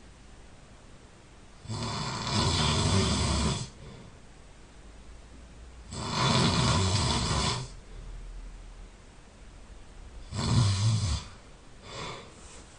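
A sleeping person snoring loudly: three long, rasping snores about four seconds apart, the third shorter, then a fainter short snore near the end, with quiet breathing in between.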